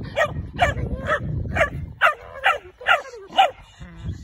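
A dog barking in a quick, regular series of short yappy barks, about two a second, eight in all, stopping near the end. It is a hunting dog barking at a tegu lizard it has found in the grass.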